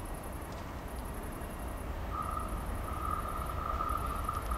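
Insects chirping in fast, evenly pulsed high trills with short pauses, over a low rumble. About two seconds in, a steady high squeal starts and holds.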